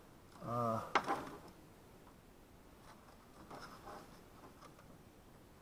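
A man's short mumble, then a single sharp click about a second in, followed by faint rustling of hands working among wiring and cable ties.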